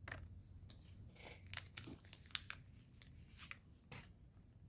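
Faint crackling and clicking of Pokémon trading cards and plastic binder sleeve pages being handled and turned.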